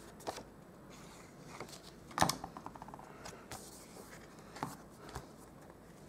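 Paper card stock being handled and pressed down on a table while a panel is glued in place: scattered light taps and rustles, with a louder quick run of ticks about two seconds in.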